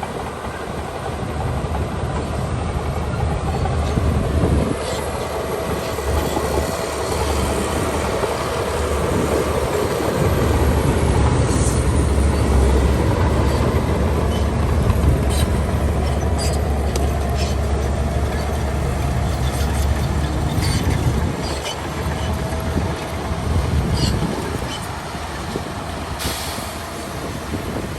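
Shantui DH17C2 crawler bulldozer working: its diesel engine runs under load with a deep steady rumble that grows louder through the middle, while the steel tracks clank now and then.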